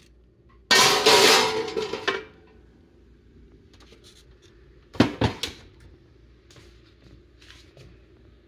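Metal baking sheet sliding and scraping over an oven rack as it is pushed into the oven, loud for about a second and a half. About five seconds in, a quick run of sharp metal clunks.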